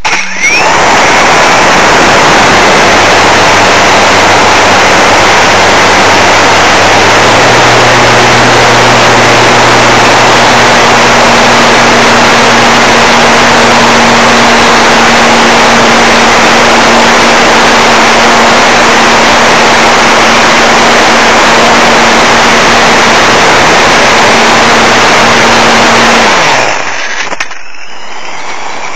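Parkzone Radian RC glider's electric motor and propeller running at full power during the climb, a steady hum under a loud rush of air on the onboard camera. About 26 seconds in the motor cuts, its pitch sliding down as it stops, leaving a quieter rush of air as the plane glides.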